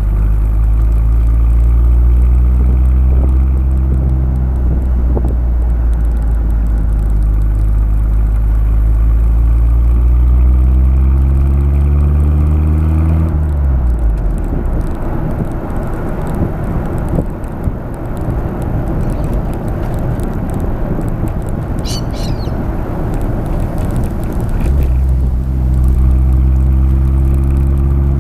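Honda City Turbo I's turbocharged four-cylinder exhaust on the move, heard from the rear of the car: the engine pulls under load with its pitch rising slowly for about thirteen seconds, then the throttle closes and the note falls away into rough wind and road noise. Near the end the engine pulls again with a steady note.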